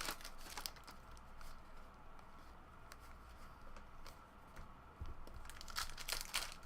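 Trading-card packs being opened and cards handled: soft swishes and crinkles of cards and wrappers, with a cluster of louder swishes near the end.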